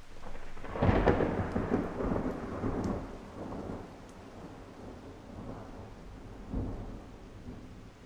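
Thunder: a sharp crack about a second in that rolls into a rumble and fades over the next few seconds, then a smaller clap near the end, over steady rain.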